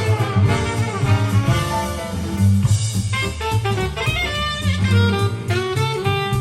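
Big band jazz played back through Tannoy Platinum B6 loudspeakers: saxophones and brass playing ensemble lines over a walking bass and drum kit.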